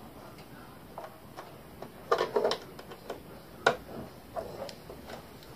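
Irregular clicks and taps of hard plastic parts being handled and fitted on a 3D-printed RC tracked-vehicle chassis, with a small cluster about two seconds in and the sharpest click a little before four seconds.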